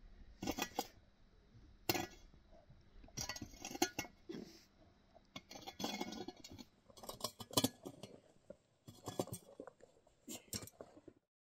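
Metal shovel blade scraping and clinking against stony dirt as it digs and scoops, in an irregular run of sharp strokes, some in quick clusters.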